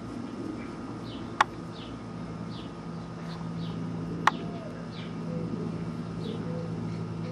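Faint, high, short chirps of small birds repeating every half second or so over a low steady hum, with a few soft whimpers from corgi puppies in the second half. Two sharp clicks about three seconds apart are the loudest sounds.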